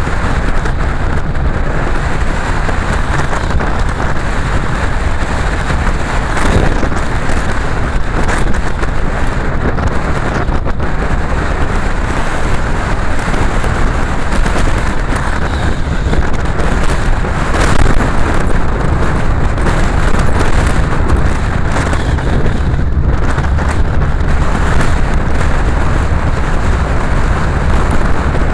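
Car driving along a road: a steady, loud mix of engine, tyre and wind noise heavy in the low end, with a few brief knocks along the way.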